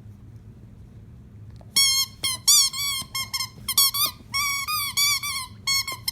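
Scottish terrier puppy letting out a rapid run of short, high-pitched squeals, starting about two seconds in.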